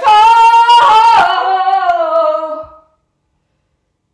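A woman singing a long held note that slides gently down in pitch and fades out about three seconds in.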